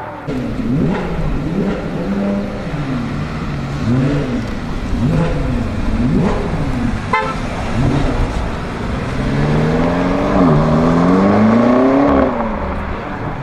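BMW M5 F90's twin-turbo V8 with a Stage 2 tune, revved through its exhaust in a series of quick rises and falls, then held up in a longer climb near the end before dropping back. There is a single sharp pop from the exhaust about seven seconds in.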